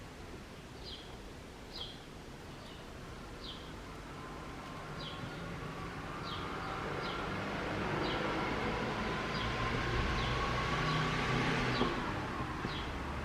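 A small bird chirping repeatedly, short high notes about once a second, while a passing vehicle rumbles, building up midway and fading near the end.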